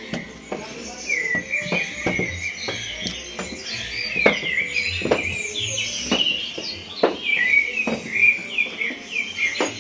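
Recorded birdsong ambience: many small birds chirping and trilling continuously, played as the soundscape of a forest-themed room. Irregular dull knocks come every half second or so beneath it.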